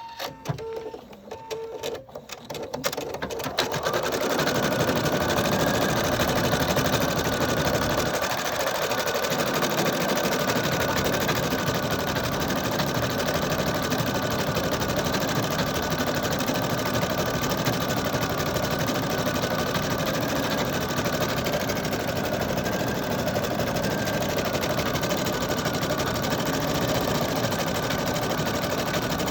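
Husqvarna Viking Designer Diamond Royale sewing machine starting an embroidery design. A few clicks come first; then, about three seconds in, the needle starts stitching at a steady fast pace with a faint high whine.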